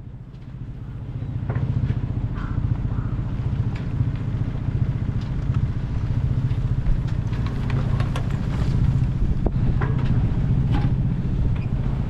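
Sailing yacht's auxiliary engine running at a steady speed as the boat motors out of the harbour, fading in over the first couple of seconds.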